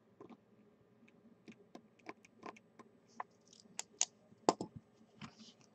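Irregular light clicks and taps at a desk, about fifteen over the few seconds, the loudest about four and a half seconds in.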